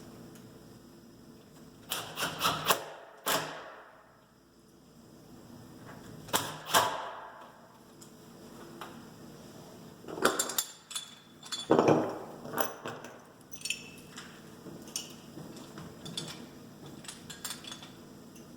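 Metal deadbolt hardware being handled and fitted into a door: irregular sharp clicks and knocks in small clusters, a few strong ones about two, six and eleven to thirteen seconds in, with lighter ticks between.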